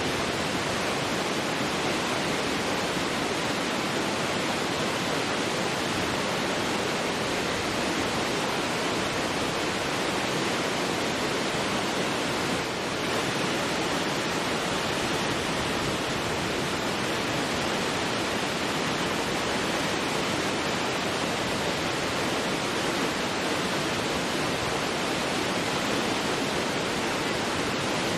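Large waterfall: a loud, steady rush of falling water, dipping slightly for a moment about halfway through.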